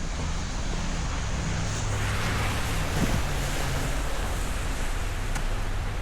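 Street traffic on a slushy, snow-covered road: a steady low engine hum, with a vehicle's tyres hissing past and swelling to a peak about three seconds in.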